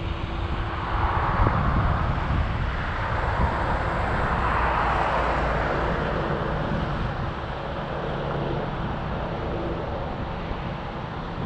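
A car driving: steady engine rumble and road noise, swelling twice, about a second in and again around five seconds.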